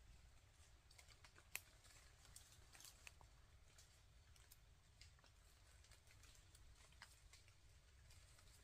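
Near silence: a low steady rumble with faint, irregular clicks and ticks scattered through it, the sharpest about a second and a half in.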